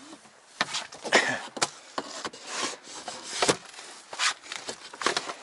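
Aluminium-edged floor panels being laid into an inflatable boat. Irregular knocks and clacks come as the panels' metal edge strips meet each other and the hull, with rubbing and sliding noise as a panel is pushed over the hull's rubberised bottom.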